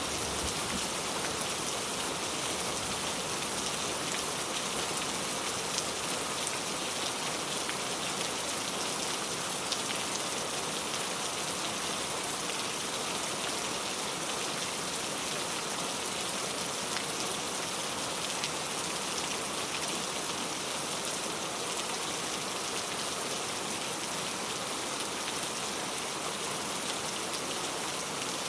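Steady rain falling on a surface: an even hiss with scattered drop ticks.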